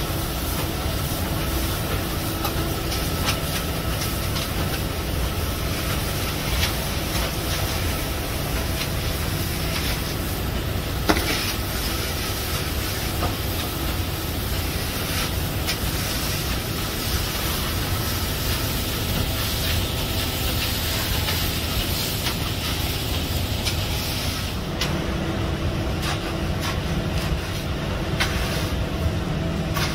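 A steady rumble of running machinery with a hiss over it and faint scattered clicks and scrapes.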